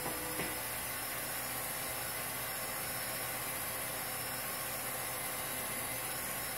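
Home-movie film projector running with a steady whir and hiss.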